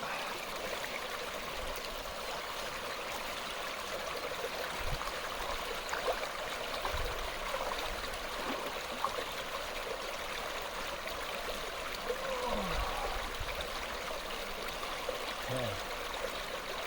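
Mountain stream flowing steadily over rocks, a continuous rush of water.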